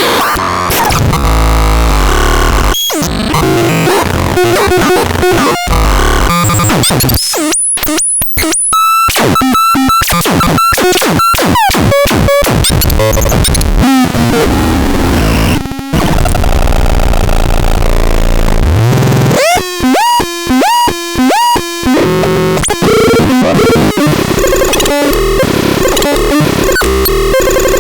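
Harsh electronic noise from the SAROLT: loud, chaotic static with rapid stutters and clicks, and repeating chirping pitch sweeps about a third of the way in. Near three-quarters through, the sound cuts out briefly several times in quick succession.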